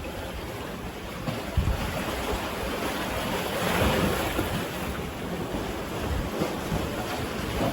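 Sea surf washing on the shore, swelling to a louder wash about halfway through, with wind buffeting the microphone.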